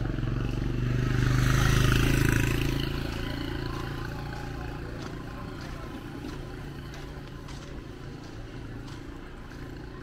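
A motorcycle engine passing close by, swelling to its loudest about two seconds in and then fading as it rides away.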